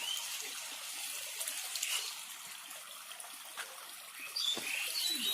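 Steady rush of running water, with a few short high chirps at the start, about two seconds in, and near the end.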